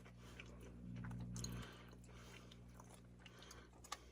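A person chewing a mouthful of bourbon chicken, faint, with a few small crunches.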